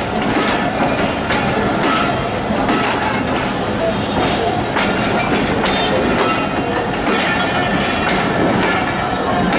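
Passenger coaches rolling past at close range, their wheels clicking repeatedly over the rail joints with a steady rumble.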